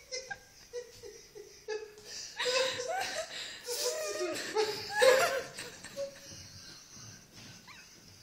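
A woman laughing hard in repeated breathy bursts, loudest about five seconds in, then trailing off.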